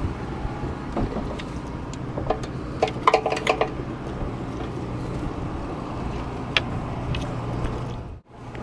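Boat engine running with a steady low hum, and a quick run of light metallic clinks about three seconds in, with a few scattered clicks around it. The sound cuts out briefly near the end.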